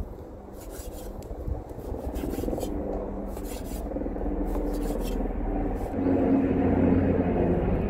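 Cleaver cutting and scoring pork neck on a wooden cutting board: a string of irregular knife strokes and knocks of the blade on the board. A steady low rumble underneath gets louder about six seconds in.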